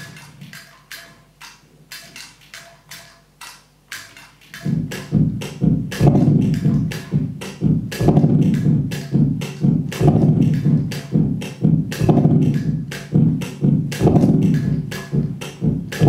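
Live electronic band music: a steady clicking beat, about four clicks a second, that a heavy low pulsing groove joins about four and a half seconds in, with a stronger accent every two seconds.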